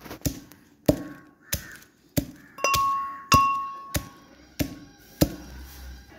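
Pestle pounding whole spices (dry ginger, cardamom, cinnamon, cloves, black pepper) in a metal mortar to crack them for tea masala: about ten steady strikes, roughly one every half second, a few of them leaving the metal mortar ringing briefly.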